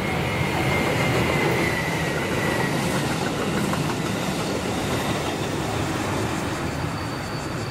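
JR Shikoku 7200 series electric multiple unit running past at speed, a steady rumble of wheels on rail. About a second in, a thin high whine slides down in pitch as the train goes by.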